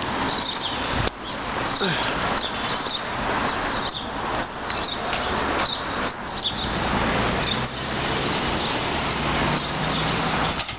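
Small birds chirping again and again over a steady background of street traffic noise.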